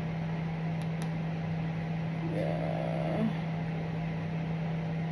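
Steady low hum of a running household appliance, with a brief faint murmur about halfway through.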